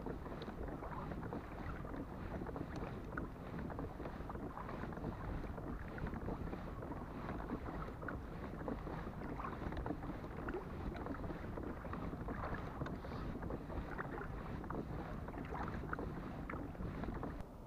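Small splashes and water lapping along the hull of a pedal-driven sit-on-top fishing kayak under way on calm sea, a steady run of light irregular ticks.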